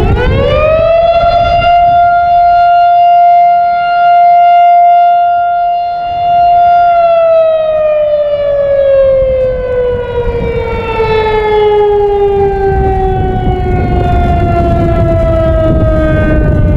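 Federal Signal STH-10 electromechanical warning siren, single-tone, spinning up to a steady high wail, holding it for about six seconds, then winding down in a long, slow falling pitch as it coasts after being switched off during a test.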